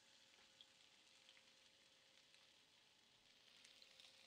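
Near silence: faint steady hiss with a thin, steady hum and a few tiny, faint clicks.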